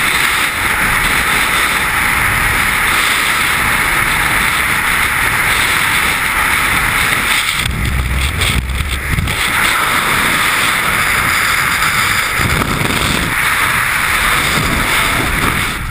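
Freefall wind rushing over the camera's microphone during a tandem skydive: a loud, steady rush of noise, with heavier low buffeting about eight seconds in.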